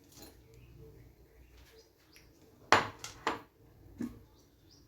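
Three sharp clinks of kitchenware, the first and loudest a little over halfway in, the next two following about half a second apart.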